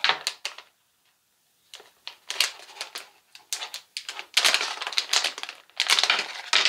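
Plastic accessory bag crinkling and rustling in the hands as it is pulled open, in irregular bursts with a short pause about a second in.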